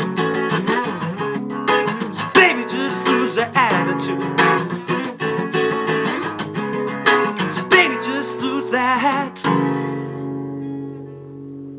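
Acoustic guitar strummed through a closing passage, ending about nine and a half seconds in on a last chord that is left to ring and fade away.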